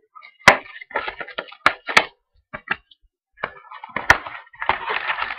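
A sealed trading-card pack handled and torn open: several sharp cracks of the stiff wrapper with crinkling in between, and a denser rustle near the end.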